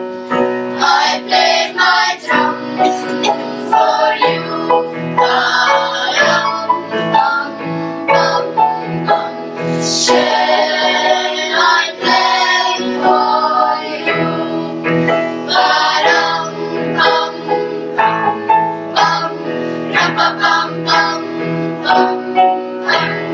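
Children's choir singing a traditional Christmas song in unison with piano accompaniment.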